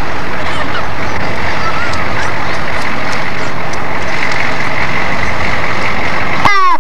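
Ambulance and fire engine driving slowly past, their engines running in a loud, steady noise with a steady high tone through it. Near the end a short falling tone sounds, then the sound drops off suddenly.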